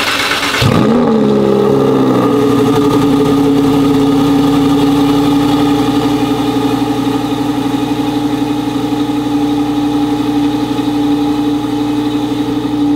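Cold start of a 2023 Lamborghini Huracán Evo's 5.2-litre V10 on its stock exhaust: a flare of revs that rises and falls over the first couple of seconds, then a steady high idle.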